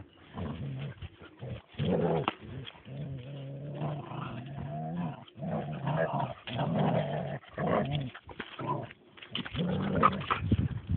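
Dogs growling, a string of low growls with short breaks, one held steady for about two seconds a few seconds in, louder near the end. These are warning growls from a greyhound trying to put a persistent terrier in its place.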